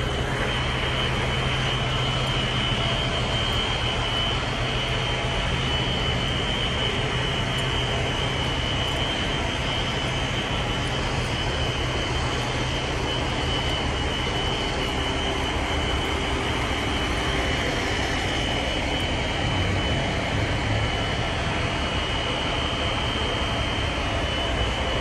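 Steady rushing roar with a low hum beneath it, and a fire alarm sounding continuously as a steady high tone through it.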